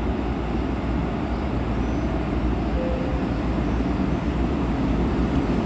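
Train running through the station, a steady rumble with no break.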